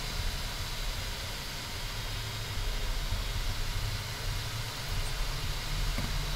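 A steady low rumble under an even hiss, with no tune or pitch.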